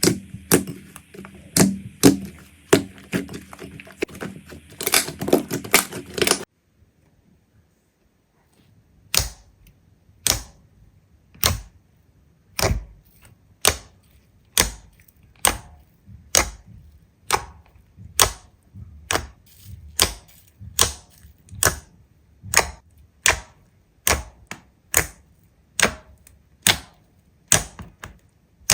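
Slime being handled: a dense run of crackling clicks at first, then, after a short pause, a steady series of sharp single pops or clicks, a little over one a second.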